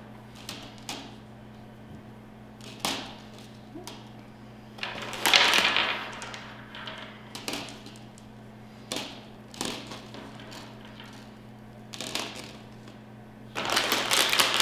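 A plastic candy bag crinkles twice, briefly about five seconds in and again near the end. Between the crinkles come light clicks and taps as jelly beans are set down on a paper plate.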